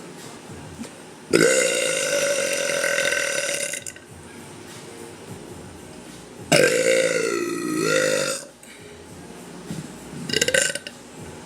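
A woman burping three times: a long, steady-pitched burp of about two and a half seconds, a second of about two seconds whose pitch dips and rises again, and a short one near the end.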